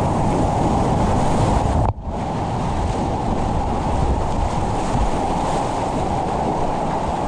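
Whitewater of a class IV boulder-garden creek rushing steadily and loudly. About two seconds in, the sound drops out for a split second, then comes straight back.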